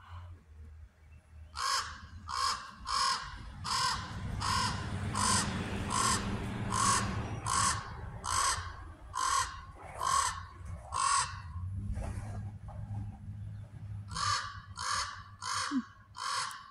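Common raven calling in a long run of short, harsh caws, about one and a half a second, then after a pause of a few seconds another run of five. The calling adult is taken by the observer to be calling to its mate or other family members.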